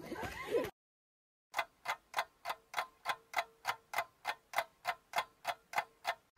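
Outdoor chatter cuts off, and after a second of dead silence a ticking-clock sound effect ticks evenly about three times a second. It marks time passing.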